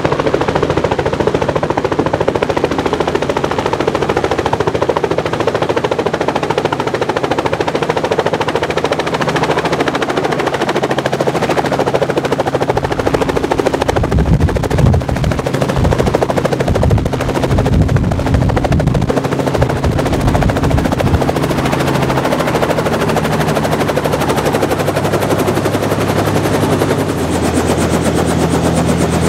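Small helicopter's rotor beating in rapid pulses over its running engine as it comes in and lands, the low thudding heaviest about halfway through. On the pad the engine and rotor keep running, with the pitch shifting a little near the end.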